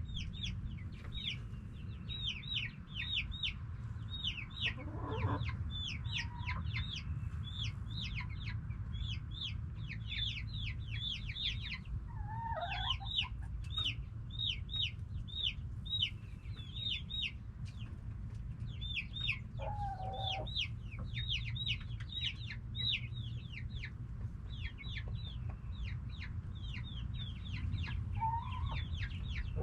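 Backyard chickens calling: a steady run of short, high, falling chirps several times a second, with a lower call breaking in now and then, over a low steady rumble.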